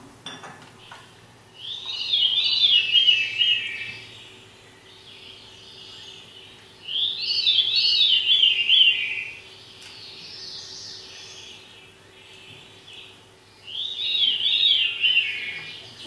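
Recorded birdsong played back in a lecture room: three phrases of quick, falling, zigzag notes, each about two seconds long and several seconds apart.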